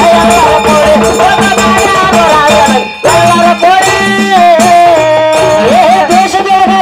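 Kannada dollina pada folk music: harmonium and a singing voice over a steady drum beat, with a short break about three seconds in.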